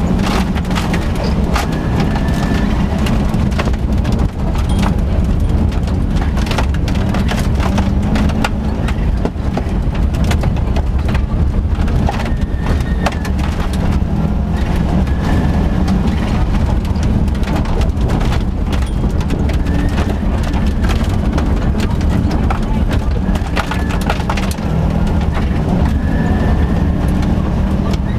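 Subaru Impreza GC8 rally car's flat-four engine running hard at stage speed, heard from inside the cabin, with loose gravel and stones clattering against the car again and again.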